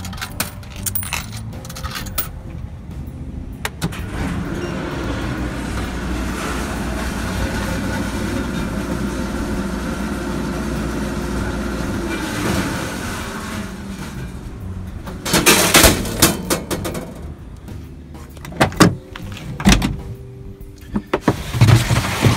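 A coin-operated vending machine runs steadily for about ten seconds as it dispenses into a cooler. It stops, and loud clattering knocks follow as the cooler is handled, with a few more knocks near the end.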